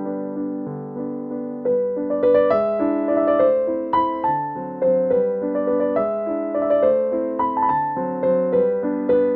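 Background piano music: a gentle melody of single notes over soft chords, picking up more notes about two seconds in.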